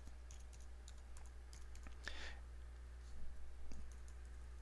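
Faint typing on a computer keyboard: a few scattered key clicks as a word is typed, over a steady low hum.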